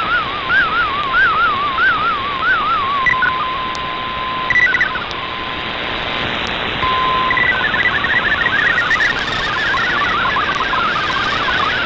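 Shortwave digital-mode data transmission heard through an AM receiver over steady hiss. For about three seconds a tone warbles rapidly up and down. A single steady tone holds for about four seconds, with a couple of brief higher beeps. Then, about seven seconds in, a dense chatter of fast-hopping tones begins: the data signal being sent for decoding.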